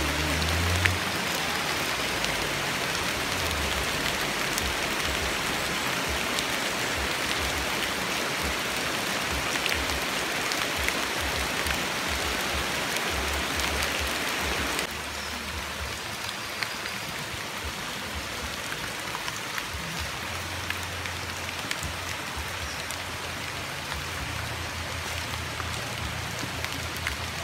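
Steady rainfall, a continuous patter of drops. It gets a little quieter about halfway through.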